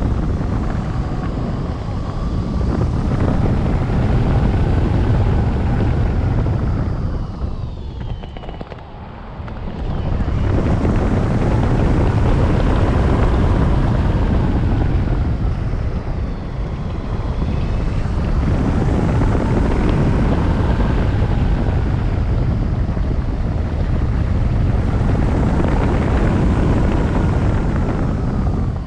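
Rush of wind buffeting the microphone of a wing-mounted camera on a tandem hang glider in flight, swelling and easing as the glider turns, with a brief lull about nine seconds in. Faint whistling tones rise and fall beneath it.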